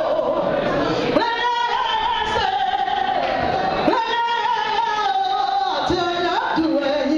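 A woman singing into a microphone, holding long notes and sliding between them, with the echo of a large hall.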